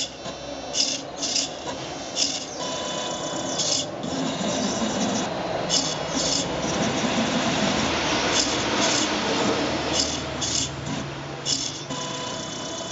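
Small motors of a brush-painting robot arm whirring in a dozen or so short high-pitched bursts as it moves the brush, over a steadier noise of the mechanism and the brush working on the paper, loudest in the middle.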